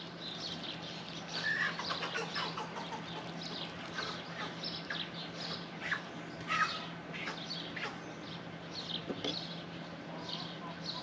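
Birds chirping: many short, high chirps scattered throughout, over a steady low hum.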